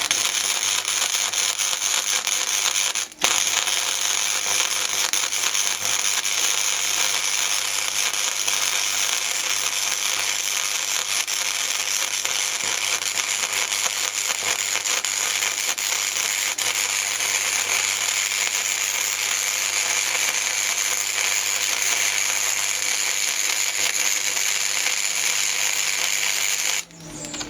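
Electric welding arc crackling and sizzling steadily over a long weld bead, with a low hum underneath; it breaks off for a moment about three seconds in, restarts, and stops shortly before the end.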